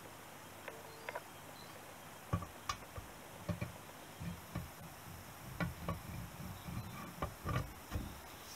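An aluminium motorcycle crankcase half being lowered and worked by hand onto its mating half. There are a couple of light clicks, then from about two seconds in a run of irregular dull knocks and bumps as the two halves meet and are rocked into line.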